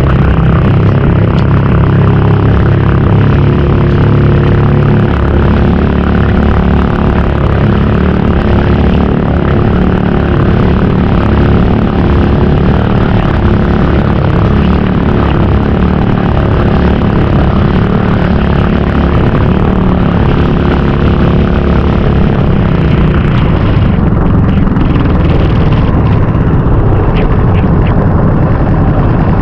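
Small fishing boat's engine running steadily at speed.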